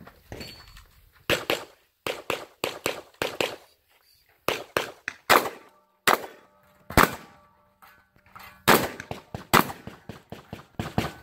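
Gunshots from a firearm fired in rapid strings of two to ten, separated by short pauses, about two dozen shots in all.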